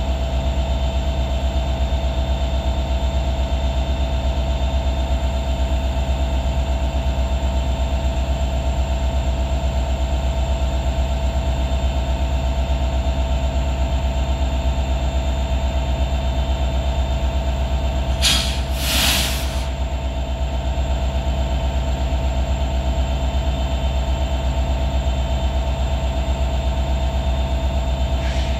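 EMD 710 two-stroke diesel engine of a BNSF SD70ACe locomotive running steadily after a cold start, with a constant low drone and a steady whine above it. About two-thirds of the way in, a loud hiss cuts in for a second and a half.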